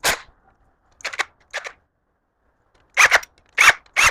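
Power impact wrench hammering in short bursts on the crankshaft main bearing cap bolts of a Mazda B-series engine, breaking them loose. One burst comes at the start and two short ones about a second in, then from about three seconds in a run of bursts roughly every half second.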